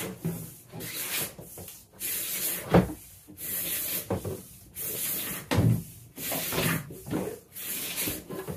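Heavy 6/3 electrical cable pulled hand over hand along wooden ceiling joists and pipes, its jacket rubbing and scraping in a run of swishes, with a couple of sharper knocks as it catches.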